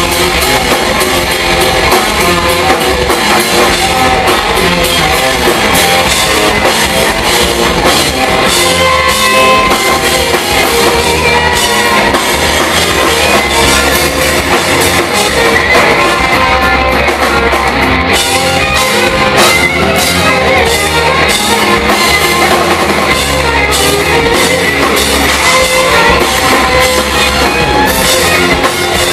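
Live rock band playing loudly: electric guitars over a drum kit, with little or no singing.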